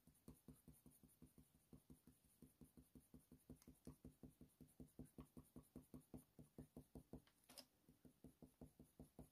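Faint, rhythmic scratching of a Faber-Castell Polychromos coloured pencil working small back-and-forth strokes on hot-press watercolour paper, about five strokes a second.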